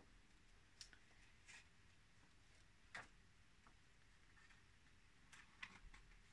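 Near silence, with a few faint ticks and rustles of paper pages being handled and turned.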